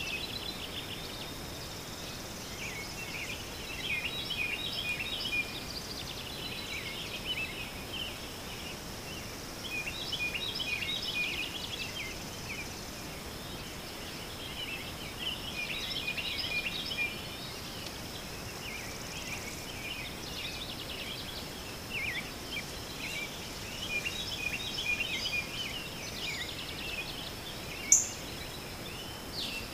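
Small birds chirping and twittering in bunches every few seconds over a steady high whine. One short, sharp high sound near the end is the loudest moment.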